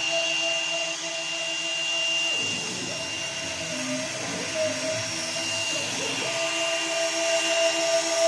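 Hobby CNC router running: its stepper motors whine as the axes move, the tones changing at each new move, about two and a half seconds in and again about six seconds in, over a steady high-pitched tone.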